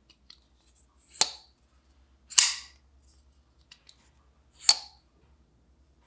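Maxace Mamba folding knife being flipped open and snapped shut: three sharp metallic snaps of the blade and lock, the middle one a little longer, with a few faint ticks of handling between.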